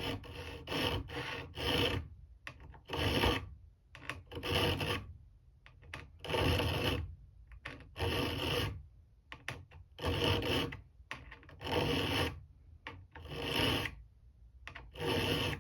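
A hand file being drawn across the steel tip of a screwdriver held in a vise, in repeated rasping strokes roughly every one and a half to two seconds, a few quicker short strokes at the start. The file is narrowing the blade's width to fit a revolver screw slot.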